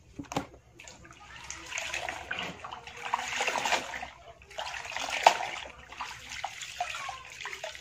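Water splashing and pouring into a plastic basin as wet laundry is wrung out by hand, in two longer washes of sound, with one sharp, loud hit about five seconds in.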